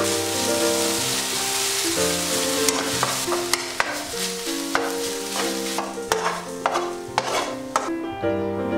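Scrambled egg, crab sticks and green onion sizzling in a hot frying pan while a wooden spatula stirs and scrapes them, with frequent sharp clicks of the spatula on the pan. The sizzling stops near the end, leaving soft background music with held notes.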